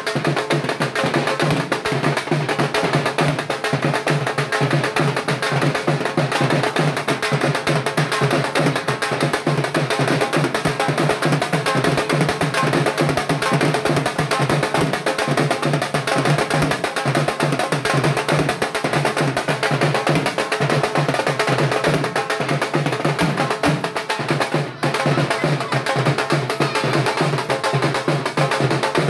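Dhol, a two-headed barrel drum, played with a thin stick on one head and the bare hand on the other, beating a rapid, steady dance rhythm, with a momentary break about 25 seconds in.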